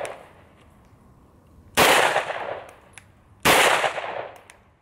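Two shots from a Kahr P9 9mm pistol, about a second and a half apart, each followed by a decaying echo.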